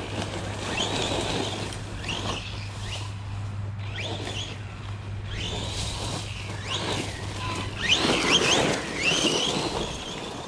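Losi Lasernut RC truck's brushless electric motor whining in short rising sweeps as it is punched again and again, with a rough rushing noise underneath; the bursts come thickest and loudest near the end.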